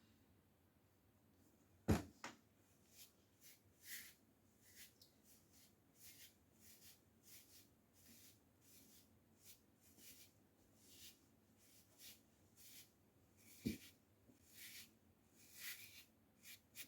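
Faint rustling strokes of hair and a wig being handled and smoothed, with a sharp knock about two seconds in and another near the end.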